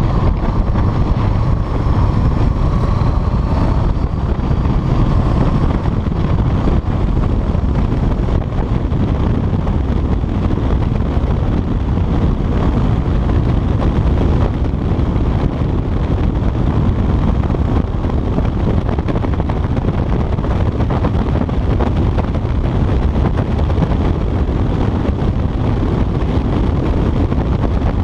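Honda CBR sport motorcycle ridden at speed, heard through heavy, steady wind rush on a chest-mounted camera's microphone, with the engine note partly showing through for the first few seconds.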